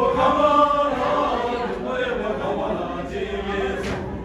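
A group of voices chanting together in unison, with long held notes: Buddhist prayer chanting.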